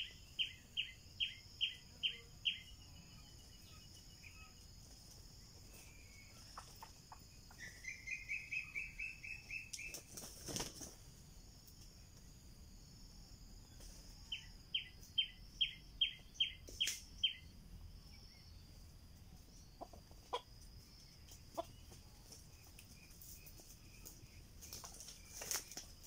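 Junglefowl roosters flapping their wings in short bursts, once about ten seconds in and again near the end. Between them a bird gives runs of quick, high repeated notes, about four or five a second, over a steady high drone.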